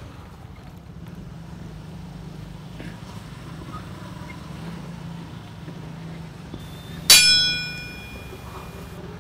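A single bright bell-like ding, struck about seven seconds in and ringing out over about a second: the sound effect of an animated subscribe button laid over the recording. Under it, a steady hum of street traffic and an idling scooter engine.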